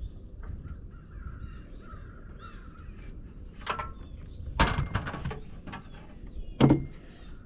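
Birds calling in the background, broken by a few sharp knocks: one a little past the middle, a quick cluster just after, and the loudest near the end, from work on the wooden garage framing.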